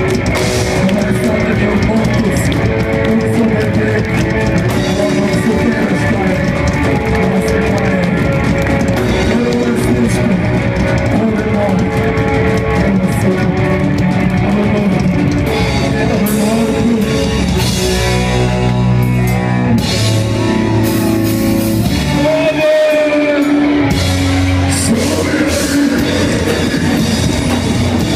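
Live rock band playing loud: electric guitar and drum kit with singing, recorded from within the crowd.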